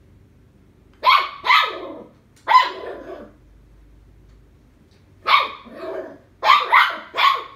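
Puppy barking in play: three short, high barks in the first couple of seconds, a pause, then four more in quick succession near the end.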